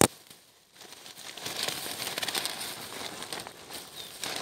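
Handling noise on a handheld camera: a sharp knock, then continuous rustling and rubbing right against its microphone.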